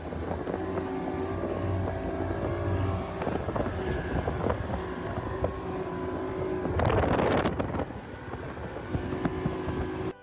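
Motorboat's outboard engine running at a steady pitch, with wind buffeting the microphone; a louder rush of noise comes about seven seconds in.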